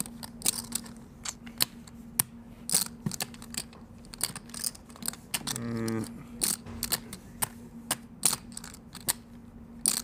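Poker chips clicking as a player shuffles them in one hand at the table: irregular sharp clicks, several a second. A short low vocal sound comes about halfway through, over a faint steady hum.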